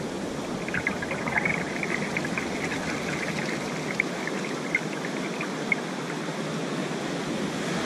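Ocean surf, with the wash of a spent wave pouring and swirling around an angler's waders in shallow water. Small ticks and clicks come through over it, with three sharper clicks about four to six seconds in.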